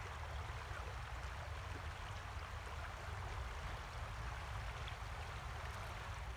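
River Wharfe's water running steadily, an even rushing with a low rumble underneath.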